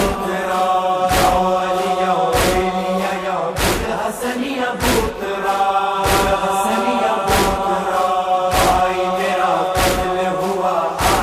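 A crowd of mourners chants a Shia lament (noha) in unison, voices holding long notes. Sharp, even beats sound about once every 1.2 seconds, keeping time as in matam chest-beating.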